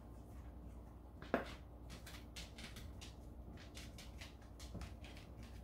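Quiet plastic clicks and creaks of a squeeze-to-measure oil dispenser bottle being squeezed in the hands. One sharper click comes about a second and a half in, followed by a run of faint ticks.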